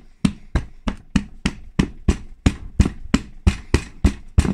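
A hand pounding down on a black 3D-printed slewring ring, about three sharp knocks a second, to force tight bearing pieces into it as a press fit.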